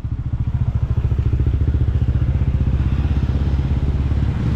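Small motorcycle and scooter engines running close by in slow street traffic: a loud, steady low rumble with a quick pulse.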